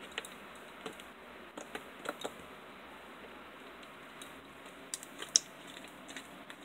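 Hard-top slime being squeezed and kneaded by hand, giving off scattered small clicks and pops, with the sharpest pop about five seconds in.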